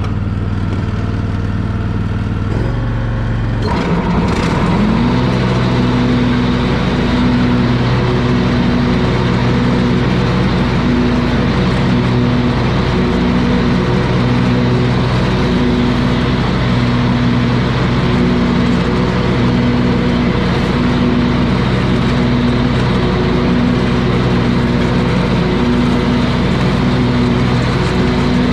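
Hustler Raptor zero-turn mower's engine running. About four seconds in there is a clunk and the engine speed rises, then it runs steadily at the higher speed while mowing grass with the newly sharpened blades.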